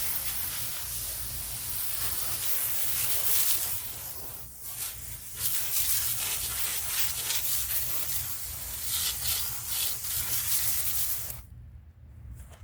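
A brush scrubbing old concrete in quick rubbing strokes, pausing briefly about four seconds in and stopping suddenly near the end.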